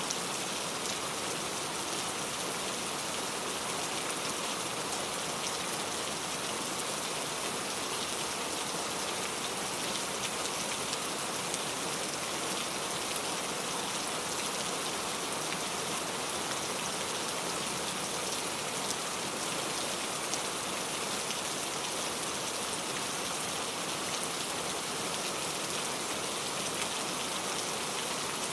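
Steady rain falling, a continuous hiss with many small drop ticks on a surface.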